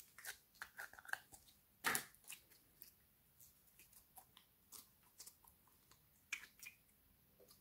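Clear pink jelly slime being pushed out of a plastic tub and stretched by hand, giving a scatter of small sticky clicks and pops, the loudest about two seconds in.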